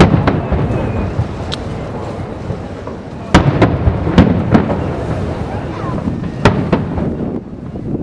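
Aerial fireworks bursting: a string of sharp booms, several close together around three to four seconds in and another pair near the end, over a continuous low rumble.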